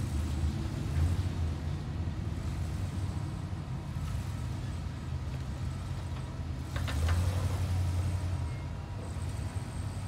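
Off-road buggy's engine running under load as it crawls through loose sand, revving up about a second in and again, louder, about seven seconds in.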